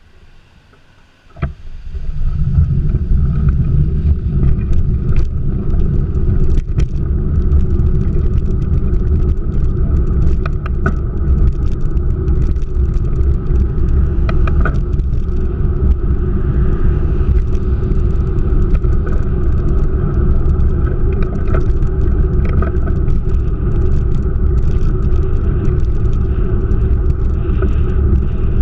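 A sharp click about a second and a half in, then a motor vehicle running with a loud, steady low rumble and scattered small clicks and rattles.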